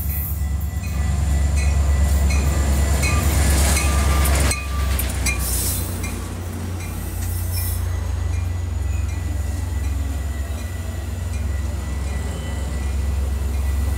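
Metra diesel commuter train arriving: a deep engine rumble and rushing noise build as the head end passes and drop off suddenly about four and a half seconds in. The bilevel cars then roll past, slowing, with regular wheel clicks over the rail and a thin steady squeal.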